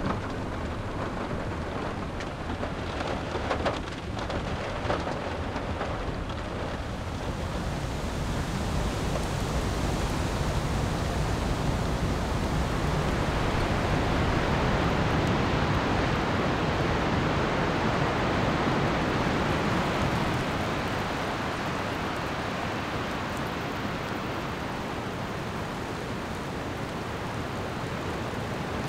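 Wind and heavy rain of a coastal storm: a steady rushing noise that swells louder for several seconds in the middle and eases off toward the end, with a few sharper taps in the first few seconds.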